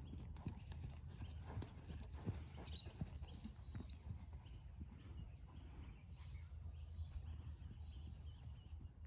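Hoofbeats of a ridden horse cantering on sand arena footing, a run of irregular soft thuds.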